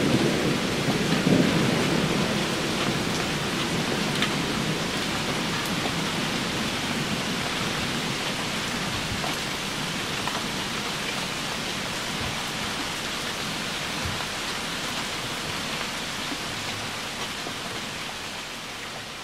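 Steady rain falling on leaves and standing water, with a low rumble of thunder that dies away in the first couple of seconds.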